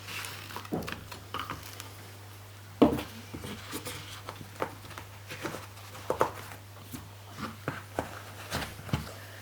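Irregular clicks and knocks of hand tools being handled and pressed into their holders in a tool kit case, the sharpest about three seconds in, over a steady low hum.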